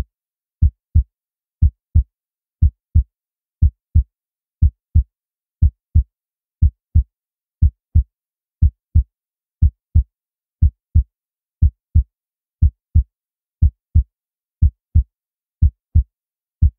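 Heartbeat sound effect: low double thumps, lub-dub, repeating steadily about once a second.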